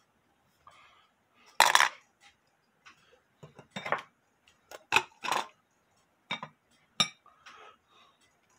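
Small metal clock parts and hand tools clinking and knocking as they are handled at the bench: several sharp, irregular clinks and clatters with short quiet gaps between them.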